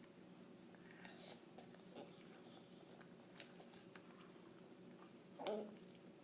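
Faint mouth sounds of someone eating ramen noodles: scattered small chewing clicks and smacks over a steady low hum, with one louder short sound about five and a half seconds in.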